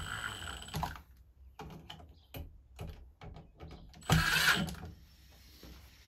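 Milwaukee Fuel brushless cordless driver spinning, driving a light switch's mounting screw into the box, then stopping just under a second in. A few light clicks of handling follow, and the driver runs again briefly about four seconds in.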